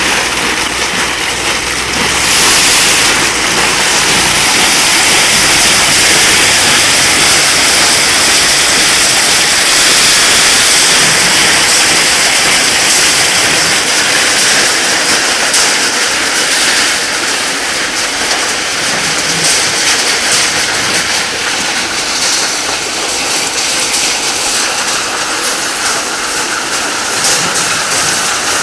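Agricultural rotary drum dryer running: a loud, steady hiss of rushing air with a faint irregular clatter.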